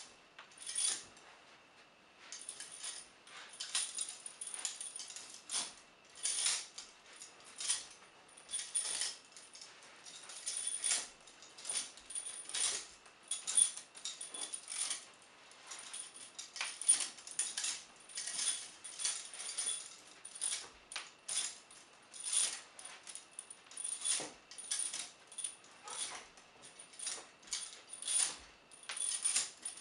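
Heavy vintage steel prisoner shackles (leg irons with a connecting chain up to handcuffs) clinking and jangling with each step of a walk, about one or two short metallic jangles a second.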